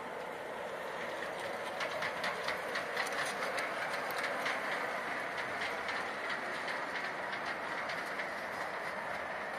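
Garden-scale model train of an NSW 44 class diesel, 4472, rolling past with a short freight: a steady whir from the locomotive's motor and wheels, with a quick run of clicks as the wheels cross rail joints, loudest from about a second and a half in to halfway through.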